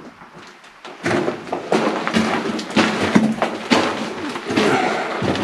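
People moving crouched through a low mine tunnel: shuffling, scuffing steps and irregular knocks and thuds on the rock floor, starting about a second in after a brief lull.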